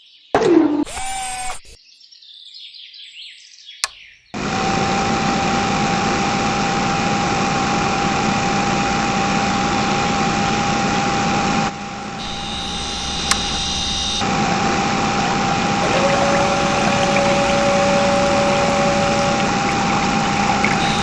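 A small electric motor starting up about four seconds in and then running steadily with a constant whine.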